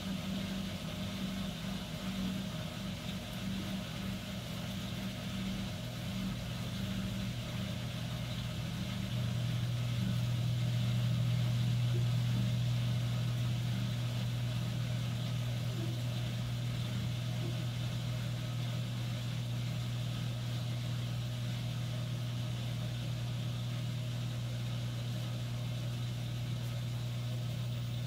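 LG Twin Wash Mini pedestal washer running its wash cycle with a sudsy load: a steady motor hum that turns louder and lower about nine seconds in.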